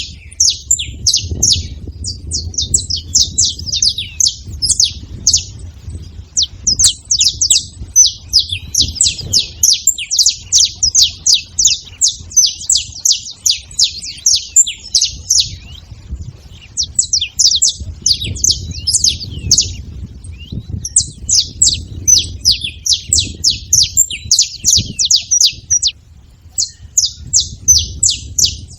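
Saffron finches chirping and calling in rapid, overlapping strings of high notes, several birds at once, with a few short breaks, about halfway through and near the end. A faint low rumble runs underneath.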